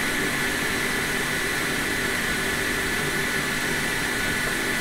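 Steady hiss and whir of a fan, with a faint high whine.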